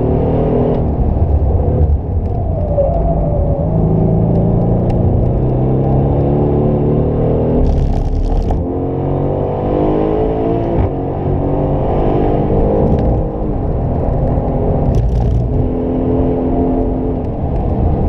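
The 2018 Aston Martin Vantage's 4.0-litre twin-turbo V8, heard from inside the cabin under hard track driving: revs fall through a downshift, then climb again and again as it accelerates up through the gears. Two short crackling bursts come through, about halfway and near the end.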